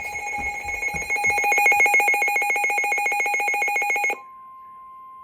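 Electronic weather-alert tone warbling in rapid pulses on two pitches, cutting off suddenly about four seconds in. A steady single tone, the NOAA Weather Radio warning alarm tone that announces a new warning, takes over and holds.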